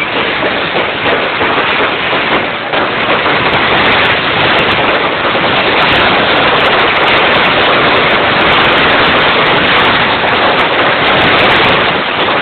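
Festival fireworks going off in a dense, continuous crackle, countless small bangs merging into one steady rattle that grows a little louder about four seconds in.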